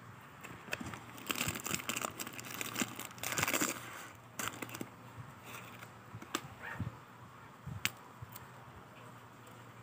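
Foil wafer packets crinkling as a hand rummages through them in the tin and pulls out a rolled wafer. The crinkling is densest in the first few seconds, then thins to scattered small rustles and clicks, with one sharp click near the end.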